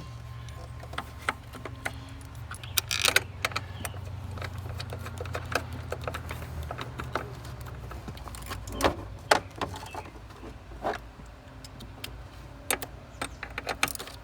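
Scattered metallic clinks, taps and clicks of a socket wrench and a steel battery hold-down bracket being fitted in a car's engine bay, over a low steady hum.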